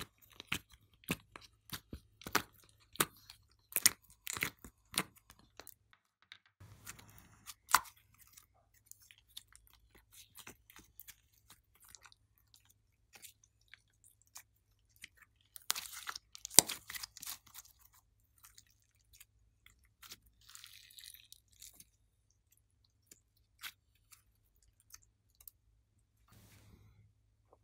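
Slime being squeezed and stretched by hand, giving a run of sharp sticky pops and crackles. They come thick over the first few seconds, thin out, then cluster again about two-thirds of the way in.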